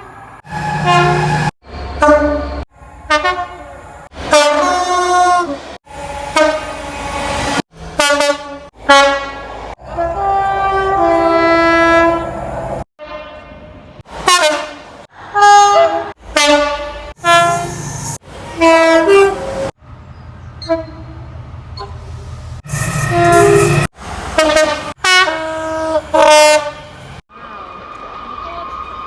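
Train horns of British diesel and electric trains, one blast after another in quick succession with abrupt cuts between them, about fifteen in all, some short and some held for a couple of seconds, several sounding two notes in turn. Near the end a quieter steady sound with a faint high tone.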